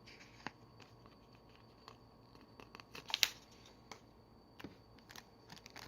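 Trading cards and their packaging being handled: faint scattered clicks and taps, with a short crinkle about three seconds in.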